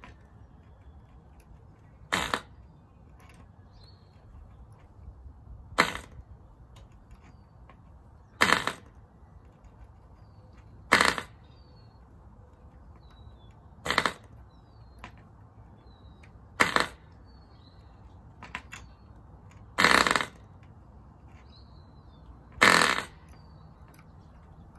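Cox .049 two-stroke glow engine being hand-flipped for starting. It fires a short pop on each flip, eight times about every three seconds, without catching and running, with fainter clicks between.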